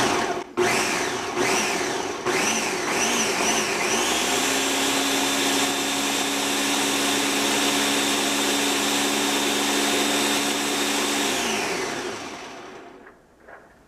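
Countertop blender pureeing roasted tomatoes and peppers into salsa. The motor gives a few short pulses, each rising and falling in pitch, then runs steadily for about seven seconds before spinning down near the end.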